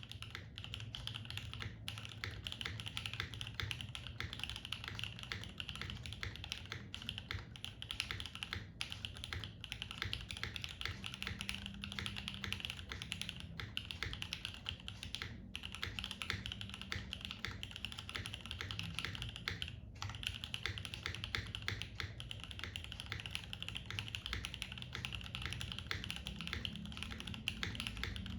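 Fast, continuous typing on a Rama U80-A mechanical keyboard fitted with stock prelubed C3 Tangerine v2 linear switches (62 g) and GMK keycaps, built foamless. The keystrokes follow one another in quick succession, with a few short pauses.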